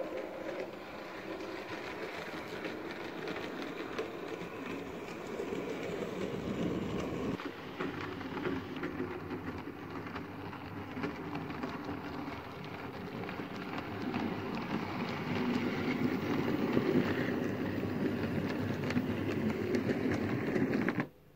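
Model railway locomotive running along the track: a steady whirring rumble from the small motor and wheels, with rapid clicking over the rail joints. It grows louder over the last several seconds.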